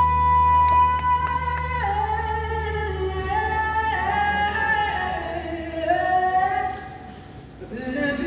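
Two women singing a slow harmony live in a hall, mostly voices alone with long held notes. A low sustained note underneath fades out a few seconds in, and the singing drops away briefly near the end before coming back in.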